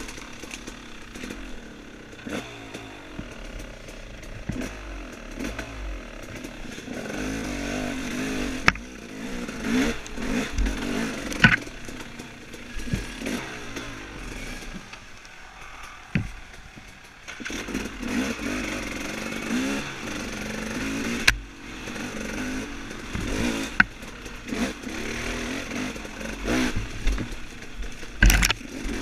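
Off-road dirt bike engine revving up and down as it is ridden over rough trail, with several sharp knocks and clatter. About halfway through the revs fall away briefly before picking up again.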